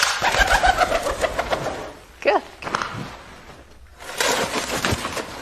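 A flying bird's wings flapping in a quick run of separate beats for about two seconds, then again about four seconds in, with a short sliding squeak between the two runs.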